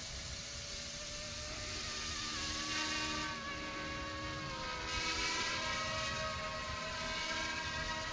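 YXZNRC F09 Black Hawk RC helicopter in flight: a whine from its electric motors and rotors, the pitch wavering with the throttle. It grows louder a few seconds in as the helicopter comes closer.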